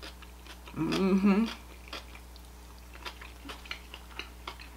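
A woman's short closed-mouth "mmm" about a second in, then faint, scattered clicks of her chewing a mouthful of food.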